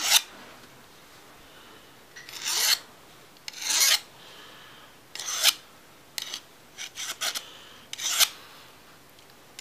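Short rasping strokes of a file drawn along the blade of pruning shears, about seven of them spaced roughly a second apart with brief pauses between, taking the burr off the freshly sharpened edge.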